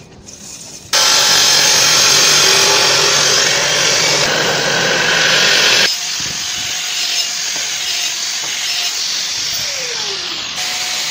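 A metal-cutting saw cutting through steel box section, a loud steady grinding noise that starts abruptly about a second in. About six seconds in it gives way to a quieter angle grinder dressing the cut end, its pitch dropping briefly near the end.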